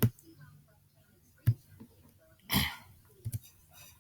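A few sharp single clicks at a computer, spaced a second or two apart, with a short breathy puff of noise just past the middle.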